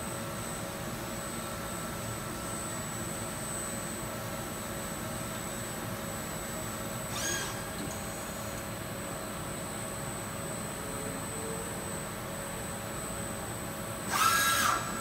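Deckel Maho DMU 50 ecoline CNC machining centre running with a steady hum and fixed high tones. There is a short whir about seven seconds in, and near the end a louder servo whine that rises and falls in pitch as the swivelling rotary table is moved.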